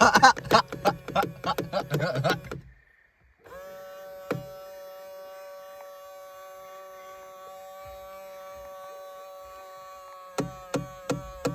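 2000 Ford Explorer power side-mirror motor, first a rapid clicking of about five a second over a steady tone. After a brief pause it gives a long, steady, pitched hum with a single knock soon after it starts, and the rapid clicking comes back near the end.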